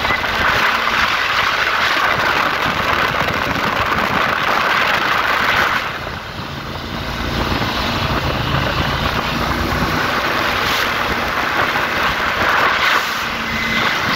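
Motorboat underway at speed: a steady engine drone under the rush of wind and water past the hull, easing briefly about six seconds in.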